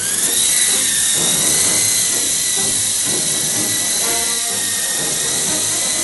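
Small electric RC toy helicopter's motor and rotors spinning up: a whine that rises quickly in pitch at the start, then holds a steady high whine with a rushing hiss of the blades.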